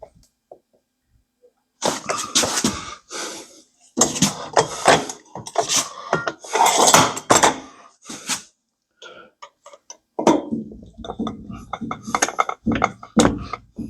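Hands working on door-lock hardware: a run of scrapes, clatters and knocks, with a few sharp clicks near the middle.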